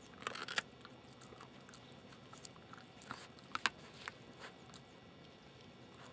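Samoyed puppy gnawing a raw meaty bone: irregular crunches and chewing clicks, a cluster in the first second and a sharp double crunch about halfway through, growing sparser near the end.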